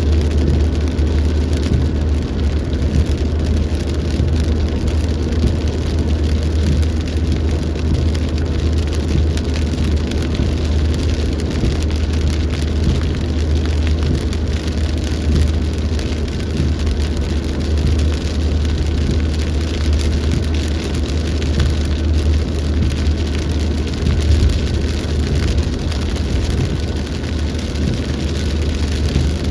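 Rain falling steadily in a storm, with a constant low rumble underneath.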